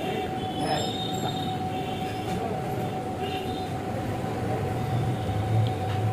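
Steady mechanical rumble with a constant whining tone held throughout, the low rumble swelling a little near the end.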